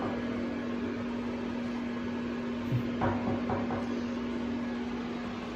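A steady low hum, with a few knocks and the clatter of a door being opened about three seconds in.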